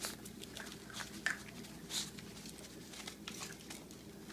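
Dogs eating: irregular short crunches and clicks of chewing.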